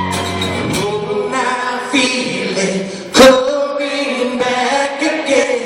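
Unaccompanied singing in a slow, chant-like line. A held musical tone stops within the first second, and a single sharp, loud knock comes about three seconds in.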